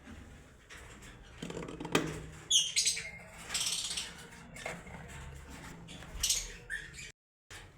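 Lovebirds chirping and squawking, with a few high, sharp chirps around the middle among short scratchy noisy bursts. The sound cuts out briefly near the end.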